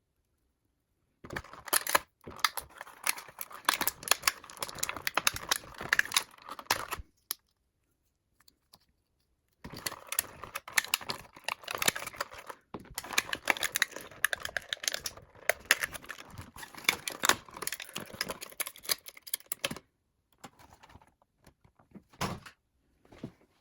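A doll's box packaging being undone by hand: rapid crackling, rustling and tearing of cardboard and plastic, in two long stretches with a silent pause between and only a few scattered clicks near the end.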